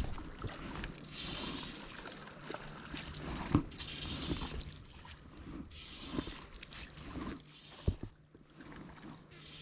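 Water sloshing and splashing around a wading angler, with hissy swishes every couple of seconds and a few dull knocks, the sharpest about three and a half seconds in and near eight seconds.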